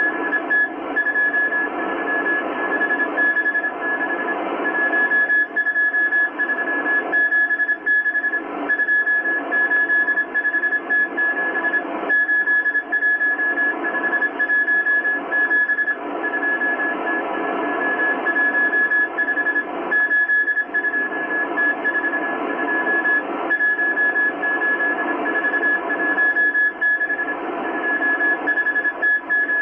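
Morse code from the M12 Russian spy station on 14951 kHz shortwave, heard through a Kenwood R-1000 communications receiver: a single high beeping tone keyed in dots and dashes, sending a coded message. Shortwave band hiss and static run underneath.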